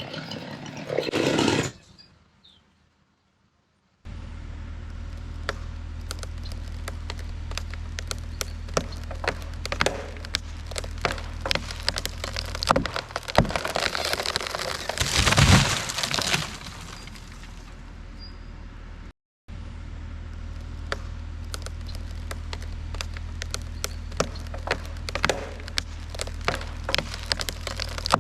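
Wood of a dead tree cracking and splintering in many sharp snaps over a steady low engine drone as the strapped trunk is pulled over. There is a louder burst about halfway through.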